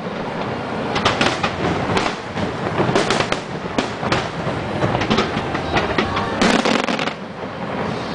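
Fireworks finale barrage: aerial shells bursting one after another in a dense, continuous run of bangs and crackle, with no pause between them.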